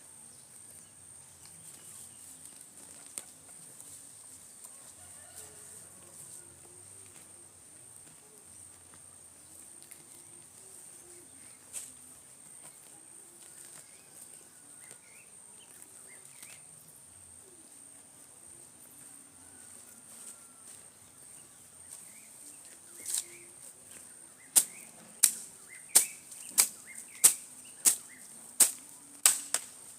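Quiet outdoor ambience with a steady high-pitched whine and a few faint chirps. About 24 seconds in, a run of loud, sharp strikes begins, evenly spaced at about one and a half a second, like repeated chopping blows.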